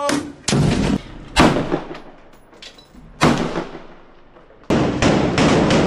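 Assault rifles fired from inside a room out of a window: a few single shots, each echoing off the walls, then a rapid string of shots for the last second or so.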